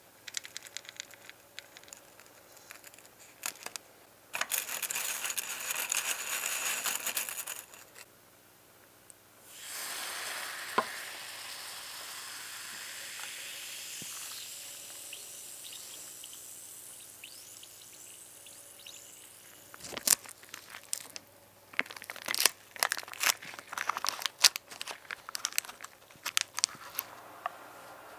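White liquid fizzing in a small plastic cup: a steady hiss that starts with a rush and slowly fades over several seconds. Before it comes a shorter loud burst of hiss, and after it a run of sharp clicks and crackles.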